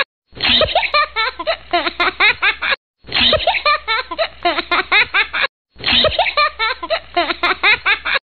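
Giggling laughter added as a sound effect. The same stretch of about two and a half seconds plays three times in a row, each time cut off by a brief moment of silence.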